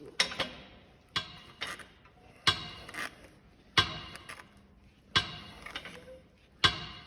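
Stakesy SSF6 shrinker stretcher working a 1.2 mm mild steel sheet on its shrinking jaws. Six sharp metallic clanks come about one every 1.3 seconds, each followed by a lighter click as the jaws grip and release, so the sheet is shrunk a bite at a time.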